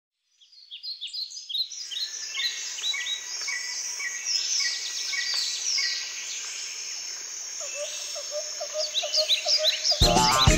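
Nature ambience of many birds chirping and twittering over a steady high insect buzz, fading in over the first couple of seconds. Music with a beat comes in near the end.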